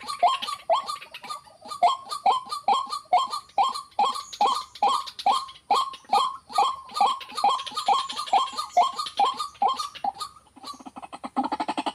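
White-breasted waterhen calling: a run of short, repeated notes, each sliding downward, about three a second. About ten and a half seconds in, it changes to a faster, lower, rapidly pulsing call.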